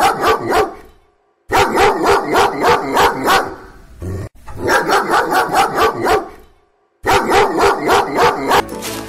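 A dog barking rapidly in four bursts of about eight barks each, the bursts nearly alike and separated by short gaps, as in a repeated bark sample.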